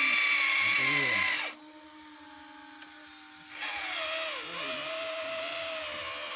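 Small electric motor and gears of an MN99 Defender RC truck whining at a high, steady pitch. The whine cuts off at about a second and a half and starts again two seconds later at a lower pitch, sagging briefly as if under load.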